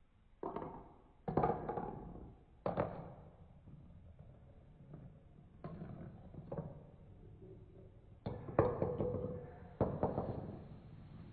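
Marbles running through a plastic Trix Tracks marble run: a string of sudden knocks and clattering rolls, eight or so, each trailing off over about a second, with two close together about three quarters of the way through.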